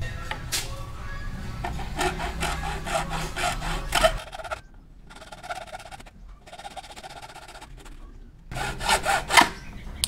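Hacksaw cutting through a half-inch PPR plastic water pipe in repeated back-and-forth strokes, quieter in the middle and strongest about two and nine seconds in.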